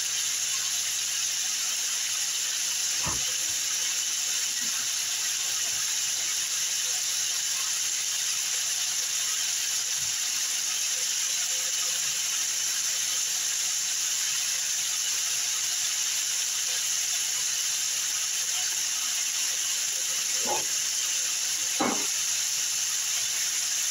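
Diced chicken breast sizzling steadily in an electric skillet, an even hiss that holds at one level throughout. A few faint knocks come through now and then.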